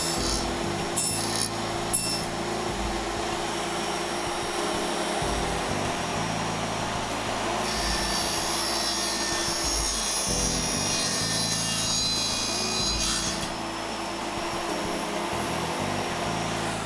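Continuous sawing through a wooden door moulding, cutting a notch so the moulding sits back against the wall.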